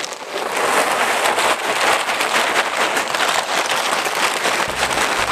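Lumpwood charcoal pouring out of a woven plastic sack onto a brick barbecue hearth: a continuous dense clatter of many small lumps tumbling and knocking together.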